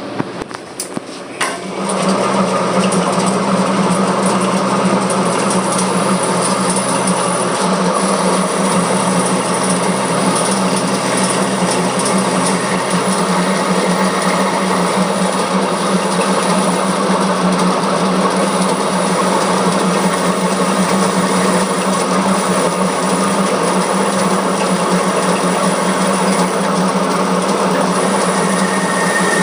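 Metal lathe clicks into gear and starts up about two seconds in, then runs steadily with a low hum while the cutting tool turns a V-belt groove in a pulley. A thin whistle comes in near the end.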